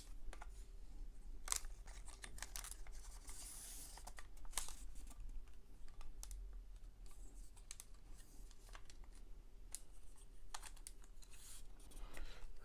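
Aluminium tripod legs being unlocked and pulled out: scattered sharp clicks and light scraping, with a short rustle about three seconds in.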